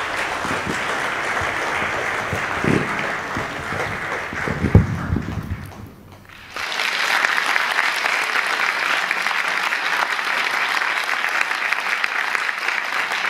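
Audience applauding, with a few low thuds about three and five seconds in. The applause dips briefly around six seconds, then comes back fuller and steady.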